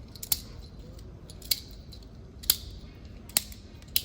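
A tapered roller bearing being smacked wide end down into a glob of grease in a gloved palm to hand-pack it, making sharp wet smacks about once a second.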